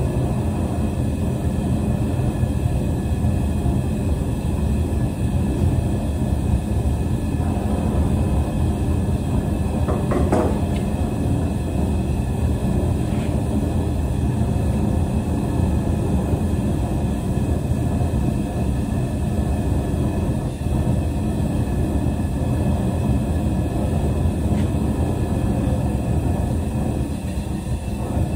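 Propane forge burner running, a steady low rushing noise that does not let up.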